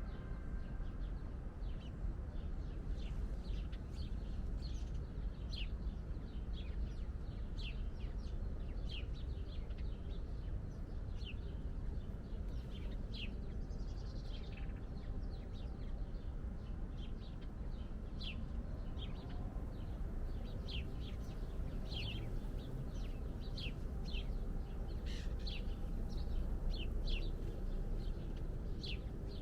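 Small birds chirping, with many short, high chirps coming several times a second, over a steady low rumble.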